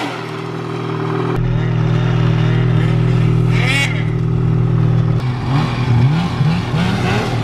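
Arctic Cat snowmobile's two-stroke engine running at a steady pitch, then revved in a quick series of short rising blips near the end.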